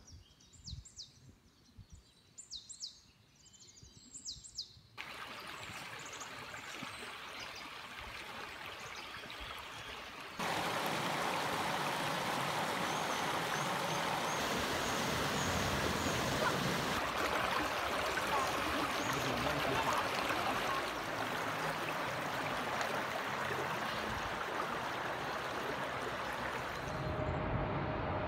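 Birds chirping in short calls for the first few seconds, then the steady rush of flowing stream water that cuts in suddenly and grows louder about ten seconds in, as water spills over a small log weir. Near the end it changes to a low engine hum.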